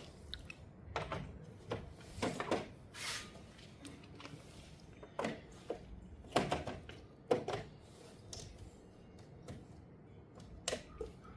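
Irregular knocks and clicks of hand work on electrical hardware, about nine spread unevenly over several seconds, with the loudest around the middle.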